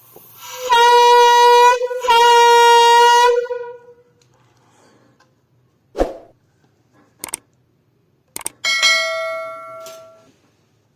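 Homemade horn blown in two long, steady blasts, each about a second and a half, with a short break between. Later come a few short knocks and a brief metallic ring that dies away.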